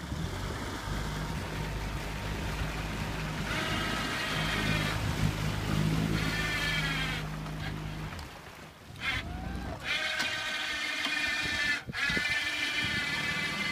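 Aquatic weed harvester boat running: a low engine hum that fades about two thirds of the way through, with repeated high, wavering whines of about a second each, four or five times.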